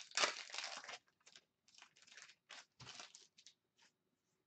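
Foil trading-card pack wrapper crinkling and tearing open, loudest in the first second. It is followed by a string of short rustles and scrapes as the cards are handled and slid out.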